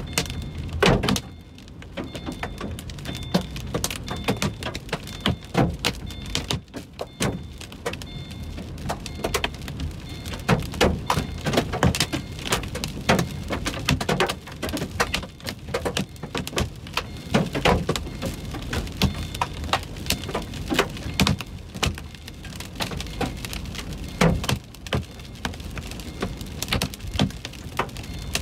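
Heavy drops striking a moving car's windshield and roof: many sharp, irregular taps and thunks over the steady rumble of the car on a wet road.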